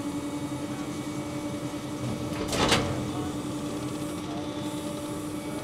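Garbage truck running with a steady hum while its hydraulic lifter lowers a dumpster from the hopper, with one loud clank about two and a half seconds in.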